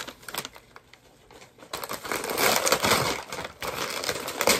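Gift wrapping paper, tissue paper and a plastic bag crinkling and tearing as a present is unwrapped by hand. The rustling is light at first and turns loud and dense after about a second and a half.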